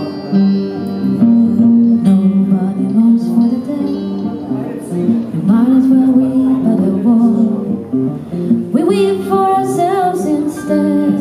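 Recorded music played back over hi-fi loudspeakers in a demonstration room: guitar, with a singing voice coming in about nine seconds in.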